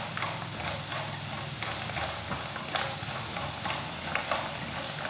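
Macaroni frying in oil in a pan, a steady sizzle, with irregular clicks and scrapes as it is stirred with chopsticks against the pan.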